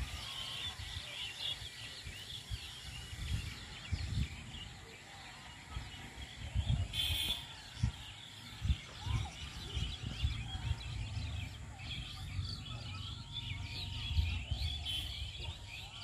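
Many birds chirping and calling together in the trees at dusk as they come in to roost, a dense, faint chorus of short calls with one louder call about seven seconds in. Low bumps of wind or handling on the microphone sit under it.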